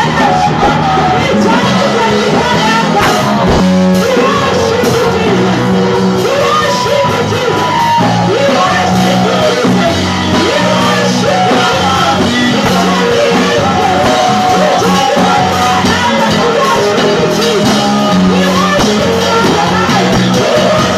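Live band music with singing, loud and steady, with guitar, bass and drums.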